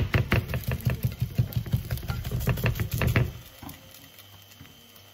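Plastic slotted spatula scraping and tapping quickly against a non-stick frying pan while pushing thin crepe batter in from the edges: a fast run of clicks and knocks that stops about three seconds in, leaving only a faint low hum.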